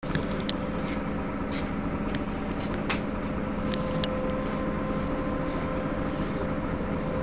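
Heuliez GX 327 city bus standing with its engine idling: a steady low hum with a couple of held tones above it, and a few sharp clicks in the first four seconds.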